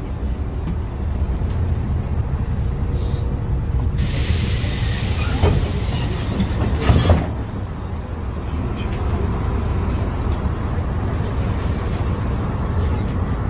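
Inside a LiAZ 5292.22-01 city bus on the move: a steady low rumble from its MAN compressed-natural-gas engine and the road. About four seconds in, a loud hiss starts suddenly and lasts about three seconds, with a couple of knocks, before the steady rumble carries on.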